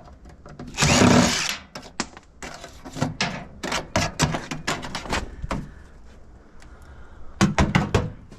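Metal parts of a microwave oven clattering and knocking as it is pulled apart by hand, with a brief loud burst of noise about a second in and a cluster of sharp clicks near the end.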